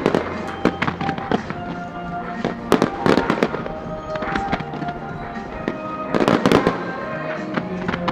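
Fireworks display: aerial shells bursting in rapid clusters, heaviest about three and six seconds in, over music playing with the show.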